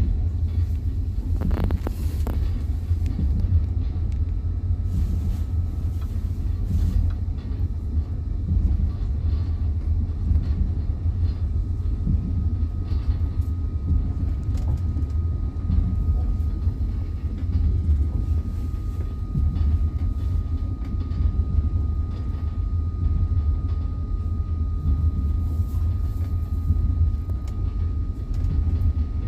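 Passenger train wheels running on the rails, heard from inside the carriage: a steady low rumble with occasional knocks, and a faint steady high whine from about four seconds in.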